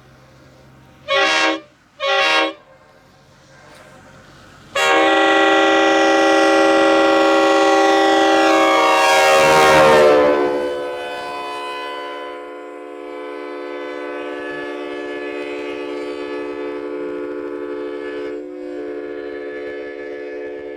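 Locomotive multi-chime air horn sounding two short blasts, then a long blast. The pitch of the chord drops as the locomotive passes, and the horn carries on at the lower pitch, quieter.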